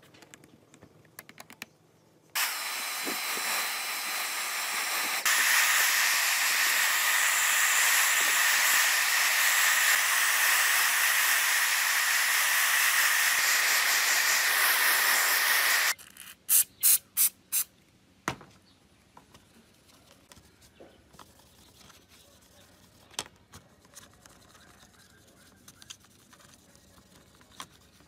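A loud, steady hiss that starts suddenly, steps louder a few seconds later and cuts off sharply, followed by four short hisses in quick succession and a single click. After that, only faint scattered ticks and rubbing.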